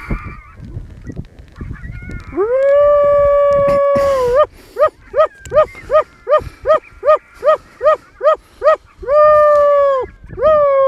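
Coyote howls and yips from a predator call: a long howl that rises at its start and then holds, a quick run of about a dozen short yips, then two more held howls, the last one falling off. This is a call to stop a running coyote, which does not stop.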